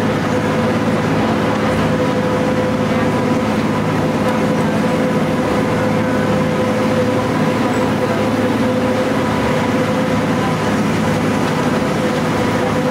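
Pikes Peak Cog Railway diesel railcar running, heard from inside the passenger car: a steady rumble of engine and cog drive with a steady whine over it.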